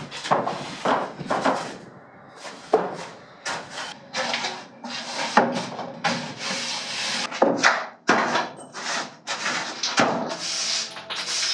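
Repeated rough scraping and rubbing strokes, one or two a second and unevenly spaced, as things are cleared out and shifted around in a shed.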